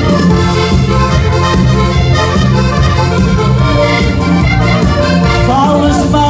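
Portuguese popular dance music played live by a band through PA speakers: an instrumental stretch with sustained melody over a steady beat.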